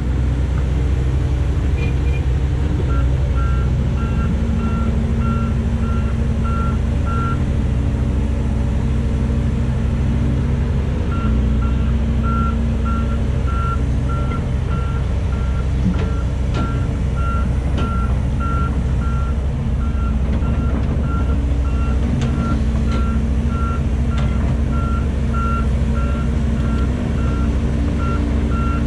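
Heavy diesel engine of a Volvo crawler excavator running steadily under load while it digs and swings, with a reversing alarm beeping about twice a second, stopping for a few seconds before starting again, and a few sharp clicks.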